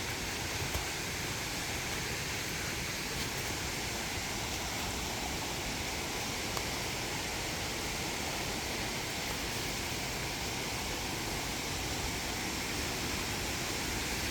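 Steady rushing of a waterfall heard from a distance, an even noise with no change.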